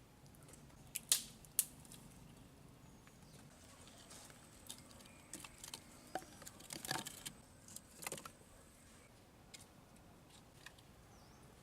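Scattered sharp clicks and knocks, two about a second in and a busier run in the middle, with faint bird chirps near the end.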